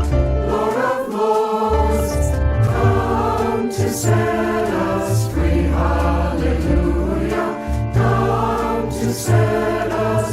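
A choir singing with instrumental accompaniment that has a strong, sustained bass line.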